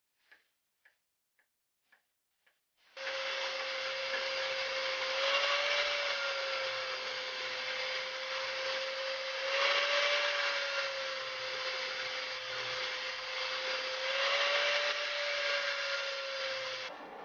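A hammer gives about six light taps, roughly two a second and fading, driving a steel wedge into an axe handle. About three seconds in, a DeWalt angle grinder grinds the steel wedge and handle end flush with the top of the axe head: a steady motor whine with a grinding hiss that swells three times as the wheel bites harder, and it stops near the end.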